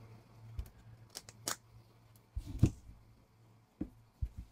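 Scattered small plastic clicks and knocks of 1/24-scale RC crawler wheels being handled and pushed onto the axle hubs, with a short cluster of louder knocks about two and a half seconds in. A faint low hum sits underneath.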